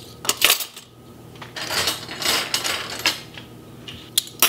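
Metal flatware clinking and jangling as spoons and forks are handled and set into a drawer's cutlery tray. There are a couple of sharp clinks about half a second in, then a longer stretch of jangling metal in the middle, and more clinks near the end.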